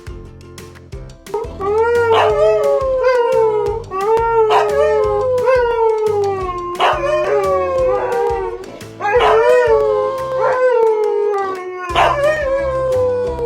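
Siberian husky howling: about five long howls in a row, each starting with a quick rise and then sliding slowly down in pitch.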